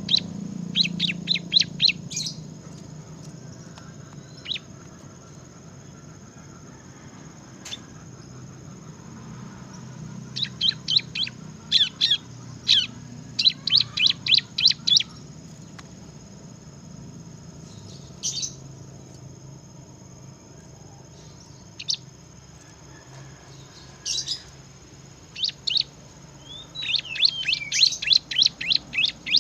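Bar-winged prinia (ciblek) singing in runs of quick, sharp, high chirps, several notes in a row, with pauses between the runs and a dense run near the end.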